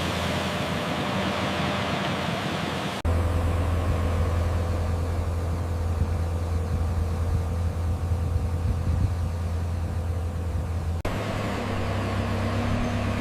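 Heavy diesel construction machinery running steadily with a low engine hum, changing abruptly about three seconds in and again near the end as the footage cuts between machines.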